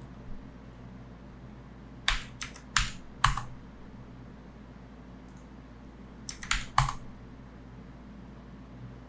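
Computer keyboard keys struck in two short bursts: about four keystrokes some two seconds in, then three or four more a little after six seconds.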